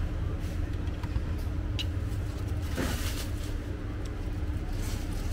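Steady low rumble of street traffic, with a few light clicks and clatters.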